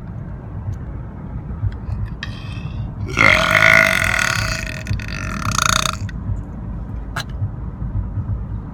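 A person letting out one long, loud burp of about three seconds, starting about three seconds in, with a short fainter sound just before it, over a steady low rumble.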